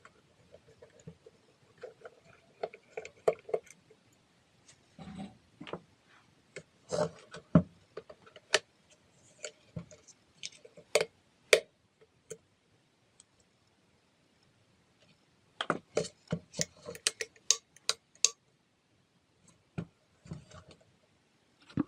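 Irregular clicks and light knocks of small hard parts and tools being handled on a workbench, in clusters with short pauses between them.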